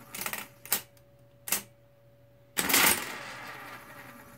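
Marchant EEG9 electric pinwheel calculator: a few sharp clicks as number keys are pressed, then, about two and a half seconds in, a loud burst of mechanical whirring and clicking that dies away as the motor turns the pinwheel drum through an addition cycle.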